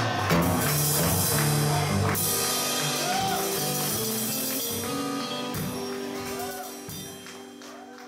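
Live band of acoustic guitar, electric lead guitar and drum kit playing, with cymbals ringing over the chords. The music gradually dies away over the last few seconds.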